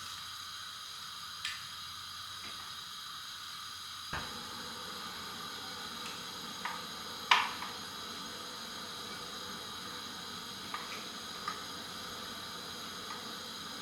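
Pot of grains parboiling on the stove, a steady bubbling hiss, with a few light clicks and knocks, the loudest about seven seconds in.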